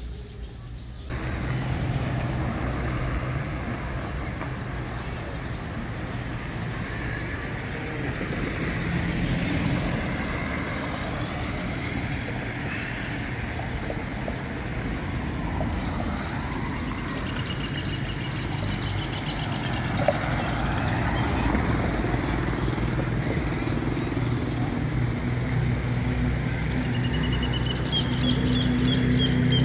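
Steady outdoor street noise, mostly road traffic, with a run of short high chirps about halfway through and a brief rising tone near the end.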